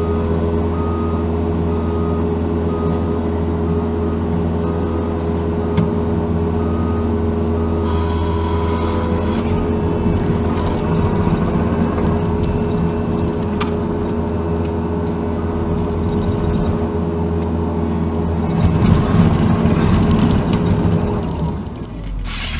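Case TV450 compact track loader's diesel engine running steadily under load, heard from inside the cab, with a beep repeating about once a second over the first several seconds. The engine works harder and rougher near the end, then eases off.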